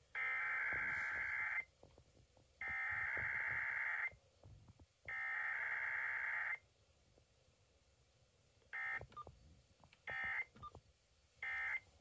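Emergency Alert System digital data header (SAME tones), a harsh warbling burst of data sent three times, each about a second and a half long with a second's pause between. Three shorter bursts of the same data follow near the end. All of it comes through the small speaker of a Uniden BC370CRS scanner radio tuned to FM.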